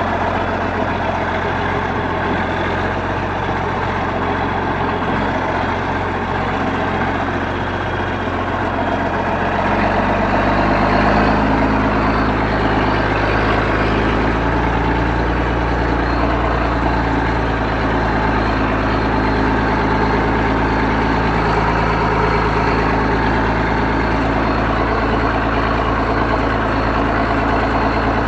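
John Deere 4630 tractor's six-cylinder turbo diesel running steadily under way. About ten seconds in, the engine note changes and gets a little louder, as the engine speed or load picks up.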